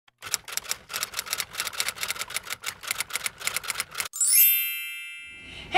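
Typewriter sound effect: rapid key clacks for about four seconds, then a bell-like ding that rings out and fades.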